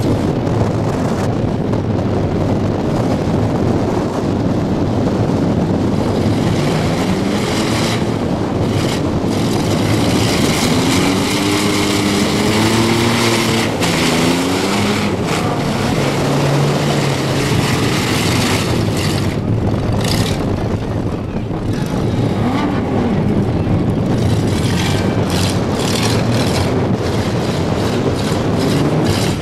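Demolition derby vans' engines running loudly and revving, their pitch rising and falling again and again through the middle and once more near the end.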